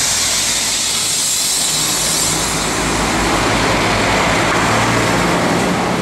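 PESA SA134 diesel railcar departing and passing close by, its diesel engine running with steady wheel and rail noise.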